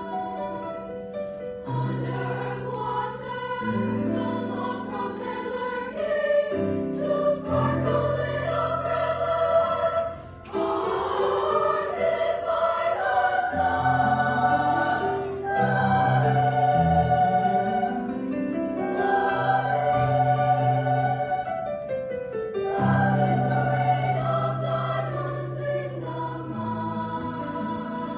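Women's choir singing in parts, with piano accompaniment, with a brief break in the sound about ten seconds in.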